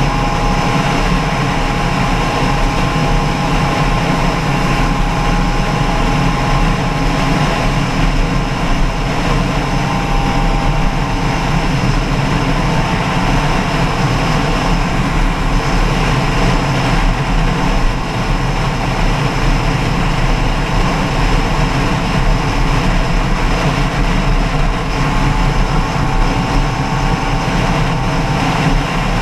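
An engine running steadily at an even speed, with a thin whine held on top of a dense running noise.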